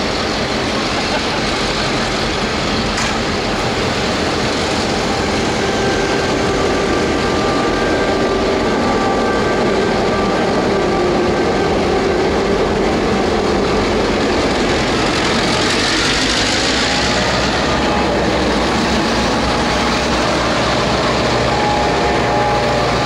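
A lashup of EMD-engined Victorian diesel locomotives (S, T and B class, two-stroke 567 series engines) pulling a container train out under power as the units pass close by one after another. A loud, steady engine drone.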